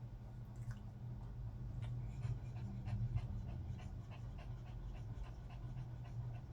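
Elderly poodle panting in quick, even breaths, about three a second, over a steady low hum.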